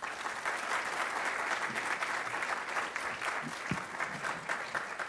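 Audience applauding: many hands clapping that start suddenly, then slowly die down near the end.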